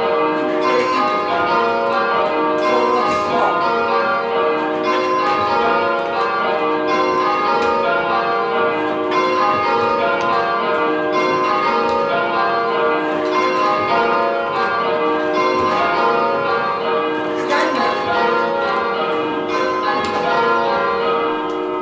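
Church tower bells rung full circle in changes: an even, continuous stream of strikes, the bells sounding one after another in rounds while pairs of bells swap places in the dynamic-pairs (kaleidoscope ringing) exercise.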